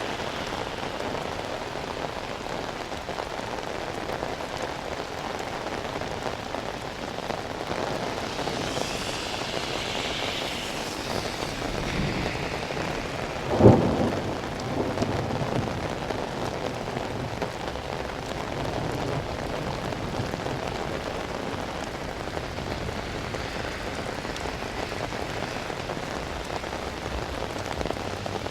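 Steady rain falling on pavement and other surfaces. About halfway through comes one sudden loud clap of thunder, followed by a couple of seconds of rumble.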